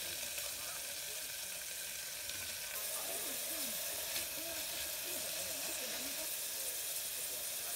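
Chopped vegetables sizzling in oil in an aluminium hangō mess tin while being stirred with a spatula. The sizzle grows louder about three seconds in.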